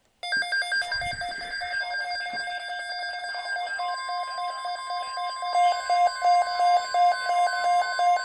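Emergency alert tones signalling a severe thunderstorm watch: electronic beeping that starts suddenly in an even rhythm of about three beeps a second, joined about four seconds in by a steady unbroken tone.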